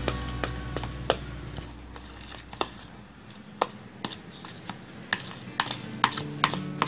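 Metal spoon knocking and scraping against a bowl while stirring minced fish paste: irregular sharp clicks, sparse at first and coming faster near the end.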